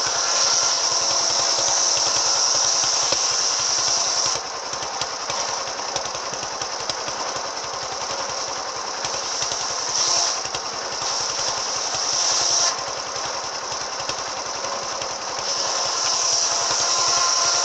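Engine-driven circular saw (serkel) with an AKM saw blade running and cutting wood. A rapid engine thudding runs under a high blade whine. The whine is loudest for the first four seconds, surges briefly twice near the middle, and grows strong again from about three quarters of the way in.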